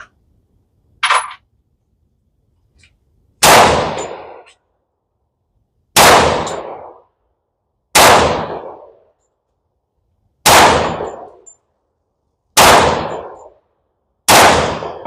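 Six shots from an FN 510 Tactical 10mm pistol firing 180-grain Magtech ammunition, slow aimed fire about two seconds apart, each shot trailing off in a long echo. A short metallic clink comes about a second in, before the first shot.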